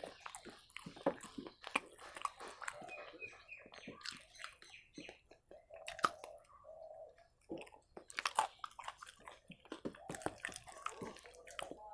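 Close-miked chewing of rice mixed with a watery taro curry: wet mouth noises and lip smacks with irregular sharp clicks, and a brief low hum of the eater partway through.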